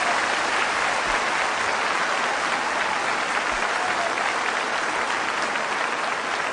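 Large concert audience applauding: dense, steady clapping that eases off slightly toward the end.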